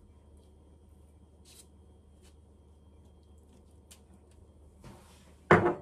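Faint soft dabs of a pastry brush spreading egg wash on raw bun dough, over a low steady room hum, then a single loud knock near the end.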